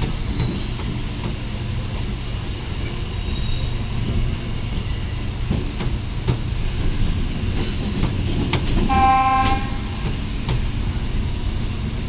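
Train running on the rails, heard from aboard the moving train: a steady low rumble with wheel knocks over rail joints. A train horn sounds once for about a second, about three-quarters of the way through.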